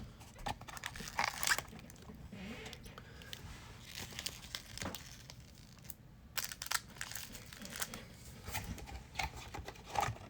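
Shiny foil trading-card packs crinkling and rustling as they are handled and pulled out of their box, with scattered light taps and clicks.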